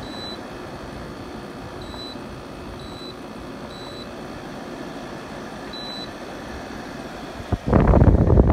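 Arctic King portable air conditioner running with a steady hum while its control panel gives five short high beeps as its buttons are pressed to change the fan mode. Near the end a sudden loud rush of air starts across the microphone.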